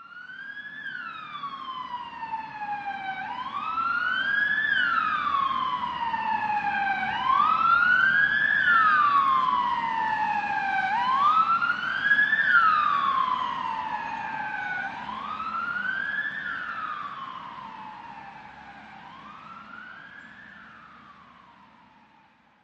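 An emergency-vehicle siren wailing, rising quickly and falling slowly about every four seconds. It swells in loudness and then fades out near the end.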